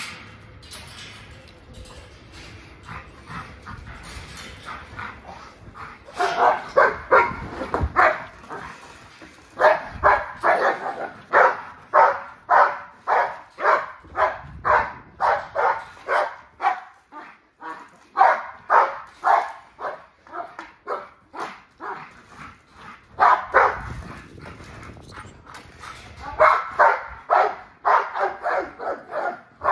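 American bully dogs barking repeatedly, about two barks a second. The barking comes in long runs with short pauses, starting quieter and getting louder a few seconds in.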